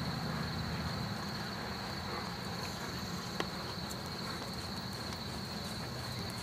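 Steady, high-pitched chorus of insects over a low background rumble, with a single sharp click about three and a half seconds in.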